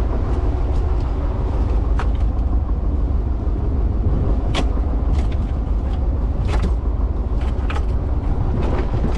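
Steady low rumble and rush of the sailboat under way at sea, with a few sharp knocks and clicks as a freshly caught Sierra mackerel is handled on the teak cockpit grating.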